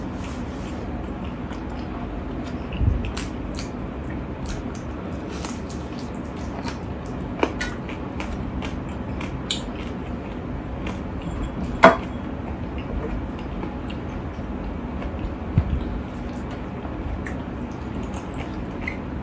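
Eating with the fingers from a steel plate: scattered clicks and wet smacks of fingers and rib bones on the plate and of lips, the sharpest click about twelve seconds in, over a steady low hum.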